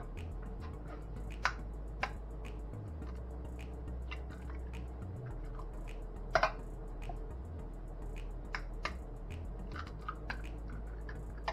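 Eggs being tapped with a utensil, cracked open and dropped into a bowl of batter: a few sharp taps, the loudest about six seconds in, then smaller clicks near the end, over a steady low hum.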